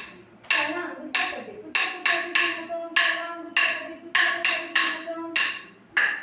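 Sharp wooden strikes keeping time in an uneven rhythm, about a dozen, roughly one every half second. This is the beating stick on a wooden block (tattukazhi) that marks the beat for a classical Indian dancers' namaskaram.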